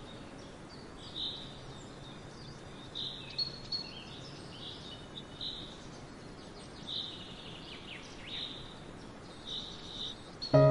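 Small birds chirping in short, repeated calls over a steady background hiss.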